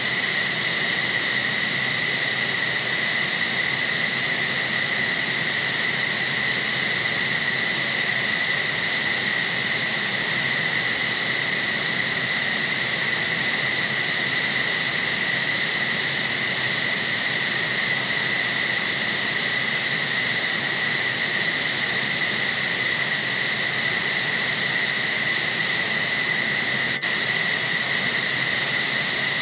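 F-15SG's Pratt & Whitney F100 turbofan engines running at idle during start-up: a steady high-pitched turbine whine over a constant rush of jet noise.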